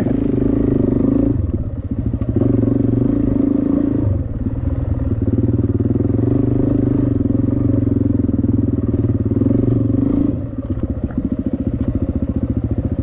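Suzuki DR-Z400's single-cylinder four-stroke engine running under throttle as the dirt bike is ridden along a trail. It eases off briefly about two seconds in and again for the last few seconds.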